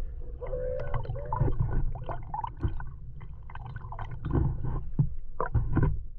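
Muffled sound picked up by a camera held underwater: a steady low rumble with gurgling, scattered knocks and clicks, and a brief wavering tone about half a second in.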